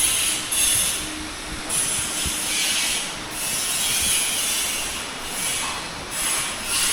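Bodywork tools working on car body metal in a rust repair shop: a harsh, rasping hiss that swells and eases every second or so.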